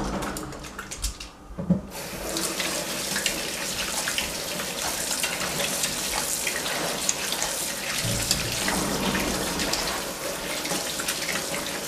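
Water running from a kitchen tap into a sink, a steady splashing rush that thickens about two seconds in.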